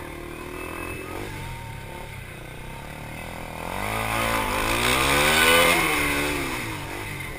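KTM Duke 390's single-cylinder four-stroke engine under racing load: its note drops off through a tight corner, then climbs as the bike accelerates out, loudest a little past halfway, and eases near the end.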